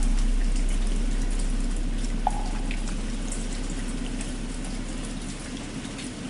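Steady rain with scattered water drops, under the fading low hum of a struck bell that dies away slowly.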